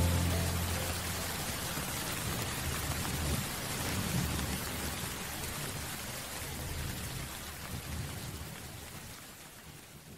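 Heavy rain pouring onto a street and pavement, with a low rumble of thunder in the first seconds. The rain fades out toward the end.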